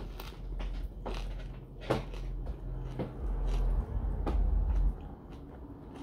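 Close-up biting and chewing of a homemade spring roll filled with kale, raw onion and barbecue brisket. There are sharp crunches about one, two, three and four seconds in, over a low rumble that grows louder toward the end.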